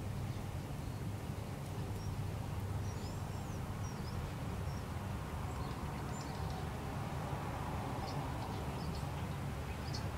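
Outdoor background noise: a steady low rumble, with a few faint, short bird chirps about three seconds in and some faint ticks later.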